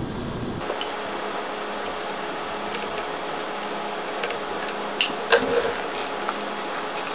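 Steady hiss with scattered light clicks and taps from handling a 3-inch PVC pipe, a can of PVC cement with its dauber, and a PVC end cap. The loudest taps come about five seconds in.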